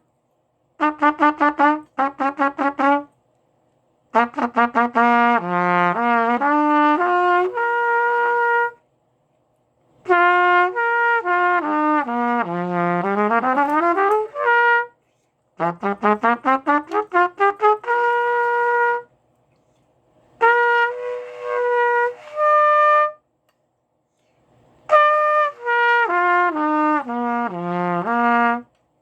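Solo trumpet playing exercises in short phrases separated by pauses: quick runs of short tongued notes at first, then several arpeggio passages that step down and back up. The arpeggios come out fairly clean, with a little unevenness in the tonguing.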